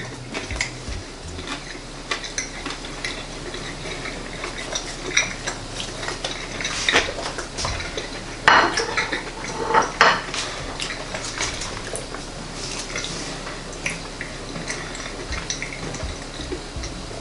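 Knife and fork clinking and scraping on a plate while a calzone is cut and eaten, with a few louder scrapes and knocks around the middle.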